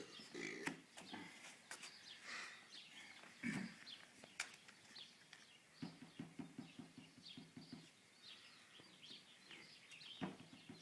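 Quiet room with soft, scattered clicks and taps of playing cards being handled and set down on a table, and a faint low murmur about six seconds in.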